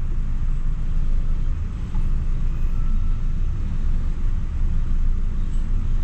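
Steady low rumble of road traffic in a jam, vehicle engines idling and creeping.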